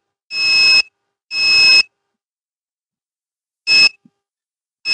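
Electronic beeper of a homemade keypad transmitter: two half-second beeps about a second apart, then, after a pause of nearly two seconds, two short beeps as number keys are pressed, the second near the end.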